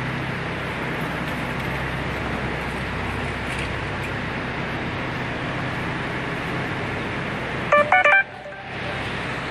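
Steady background noise with a low hum. About eight seconds in, a quick run of electronic beeps at several different pitches, like telephone keypad tones, is the loudest sound.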